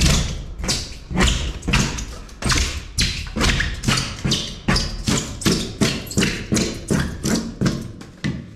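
A steady run of knocks, about three a second, each with a short ring, from a tool striking at the shipping-container wall while its insulation is being stripped out. The knocks get a little quieter toward the end.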